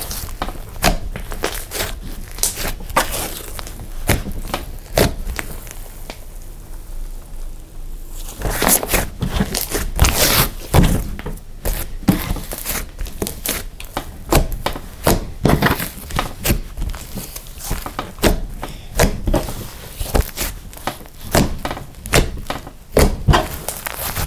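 Cloud slime being squished and stretched by hand, giving a dense run of irregular sharp clicks, pops and crackles.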